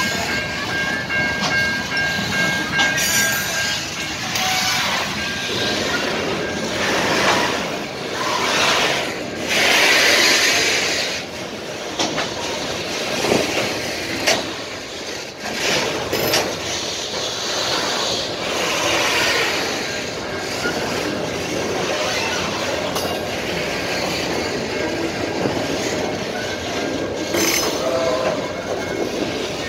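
Freight train of flatcars loaded with steel plates rolling past close by: steady rumble of steel wheels on rail, with scattered clanks and knocks from the cars and a faint high steady tone in the first few seconds.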